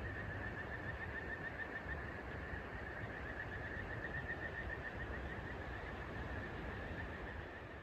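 Outdoor night ambience: a continuous, rapidly pulsing trill held at one pitch, from a chorus of calling animals, over a low steady rumble. It begins to fade near the end.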